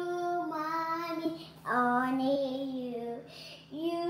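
A young girl singing long held notes, stepping between a few pitches, with a short break about three seconds in.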